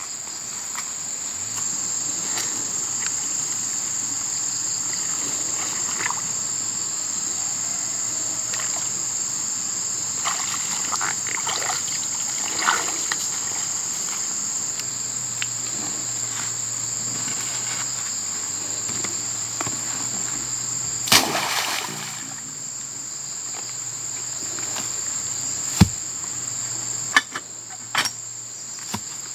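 Steady chorus of insects, a continuous high-pitched trill. Over it come scattered splashes and squelches of footsteps in shallow muddy water, with a few sharp knocks near the end.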